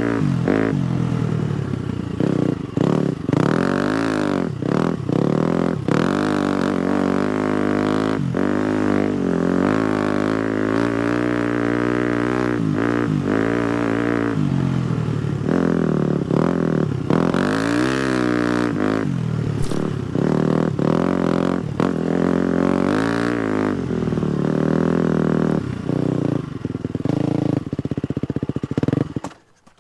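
250cc four-stroke single-cylinder dirt bike engine under way, its pitch rising and falling over and over as the throttle is opened and closed. The sound cuts off suddenly near the end.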